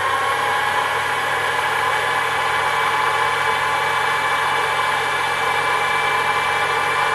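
Sherline mini lathe's motor and belt-driven spindle running steadily at full voltage with the speed controller bypassed, at about 2,100 rpm on the low-speed pulley, a steady whine with a low hum beneath it. That is roughly twice the speed on its ID plate.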